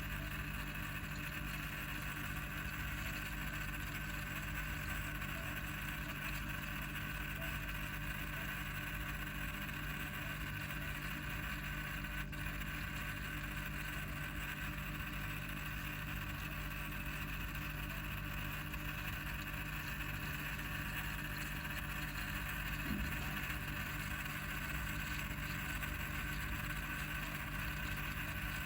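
A steady hum with a constant hiss, with no change in pitch or level.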